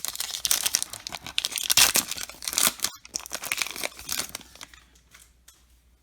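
Crinkling and rustling of a foil trading-card pack wrapper being handled. It is a run of dense, scratchy noise that dies away about four and a half seconds in.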